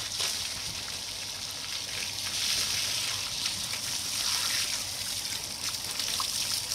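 Water from a hose running through a sheep's soaked fleece and trickling off onto the ground, a steady rush of water as the shampoo and mud are rinsed out.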